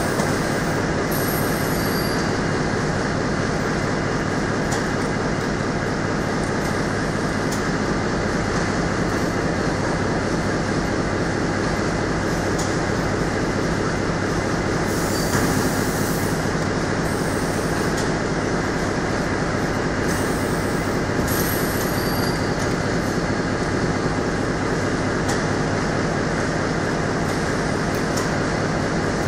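A corrugated-box flexo folder gluer line with an inline palletizer running, giving a steady mechanical clatter with a fast, even rattle. Short hissing bursts come now and then.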